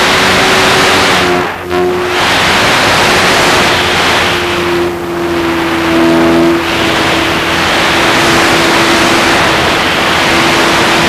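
Radio-controlled P-51 Mustang model's motor and propeller, heard from the onboard camera in flight: a steady droning tone under heavy wind rush, which dips briefly twice as the plane banks and turns.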